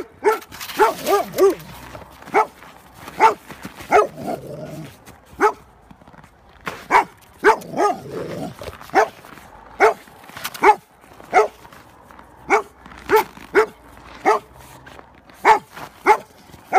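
Bernese mountain dog barking in play: about twenty short, loud barks, some single and some in quick runs of two to four.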